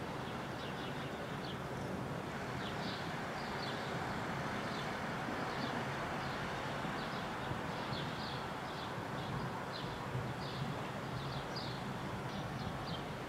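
Steady outdoor background hiss with short, high bird chirps repeating irregularly, several a second at times.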